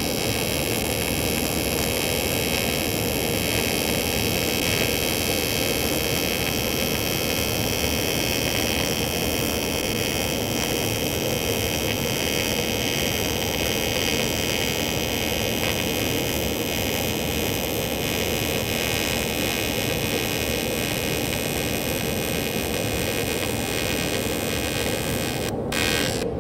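Steady buzzing hiss of an AC TIG arc welding aluminum from a Lincoln Square Wave TIG 200, with the Ranger 260MPX welder/generator's engine running underneath. The arc breaks off briefly near the end.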